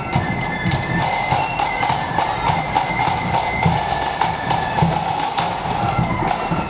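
Marching flute band playing a tune: flutes carrying the melody over drums beating a steady march time.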